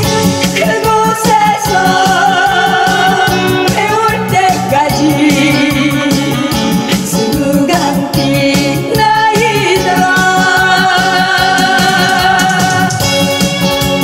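A woman singing a Korean trot song into a handheld microphone over amplified backing music with a steady beat.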